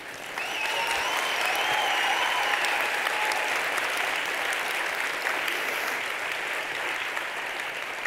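Audience applause rising within about half a second and then holding steadily. A high, drawn-out cheer rides over it for the first few seconds.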